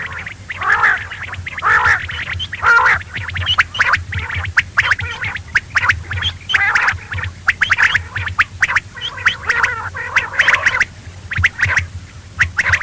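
Quail calling: a dense, continuous run of short chirping calls repeated many times a second, over a steady low hum.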